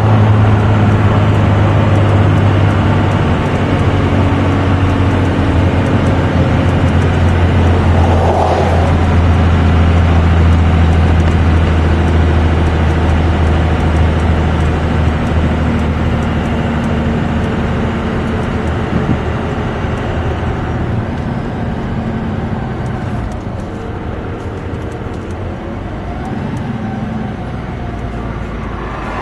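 Dodge 2500 pickup's 12-valve Cummins 5.9-litre inline-six turbo diesel droning steadily under load while towing a heavy bulldozer, heard from inside the cab with tyre and road noise. The drone gets quieter in the last third.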